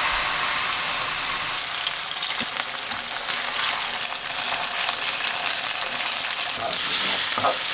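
Chicken thigh pieces sizzling in hot oil in a ceramic-coated frying pan as they brown. There is an occasional faint tap of metal tongs turning them, and the sizzle grows louder near the end.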